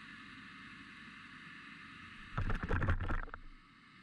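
Faint steady hiss, broken about two and a half seconds in by a burst of about a second of water sloshing, with rapid clicking and a low rumble.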